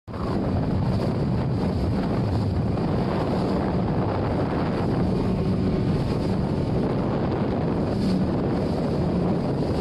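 Wind buffeting the microphone on a moving boat, over rushing water and a low, steady engine hum.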